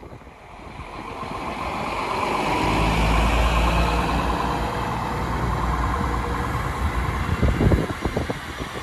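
Coradia LINT 41 diesel railcar's engines running and growing louder over the first few seconds, then holding steady, with a few thumps near the end.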